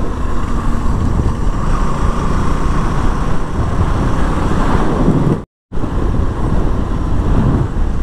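KTM Duke motorcycle running at riding speed, a steady dense rumble with wind noise on the mic. The sound cuts out completely for a moment about five and a half seconds in.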